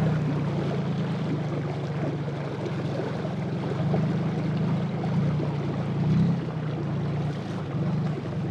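Small canal boat's engine running at a steady cruising drone, swelling slightly a couple of times, with a rush of wind and water beneath it.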